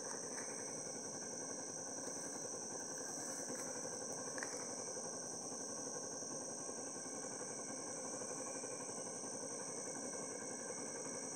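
A steady, high-pitched chorus of night insects, continuous and unchanging, with a fainter lower-pitched steady call beneath it.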